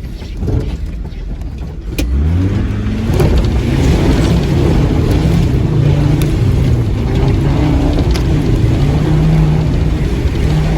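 Land Rover Discovery engine revving hard under load through deep mud: the revs climb sharply about two seconds in and then hold high with small rises and dips. A few sharp knocks come through over the engine.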